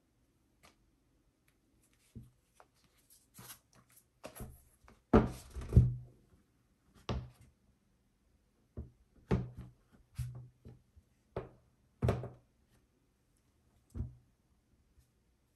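Handling noise: irregular soft knocks, thuds and scuffs of a keyboard case being moved, opened and set down on a desk, loudest about five to six seconds in.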